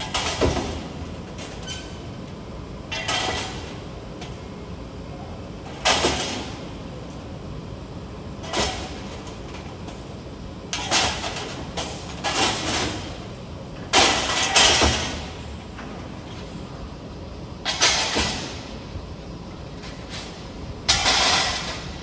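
Construction-site noise: a steady background broken by about eight short bursts of hissing, rattling noise, each starting suddenly and fading within about a second.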